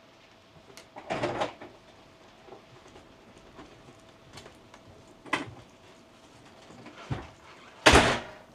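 A few separate knocks and rustles: a rustle about a second in, a sharp click in the middle, and a louder thump near the end, over a faint steady hum.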